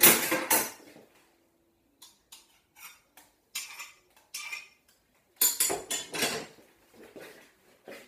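Clatter and clinks of a glass and utensils being handled on a kitchen worktop. A loud clatter comes at the start, then scattered light clicks, then another run of knocks and clinks about two-thirds of the way through.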